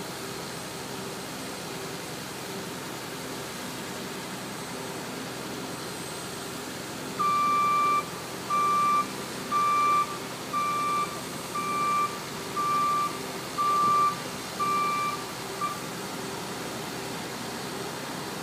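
Construction-site machinery engine running steadily, with a vehicle reversing alarm beeping about once a second for around eight seconds partway through.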